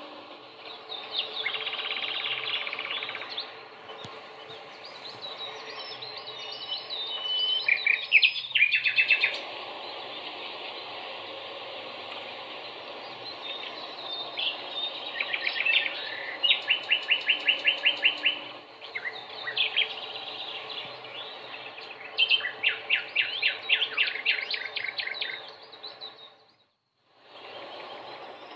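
Several birds chirping and trilling in quick repeated notes over a steady background hiss, with the sound cutting out briefly near the end.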